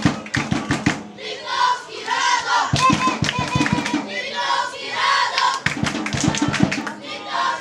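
Football supporters chanting in unison, their shouted phrases alternating with quick runs of rhythmic beats that come round about every three seconds.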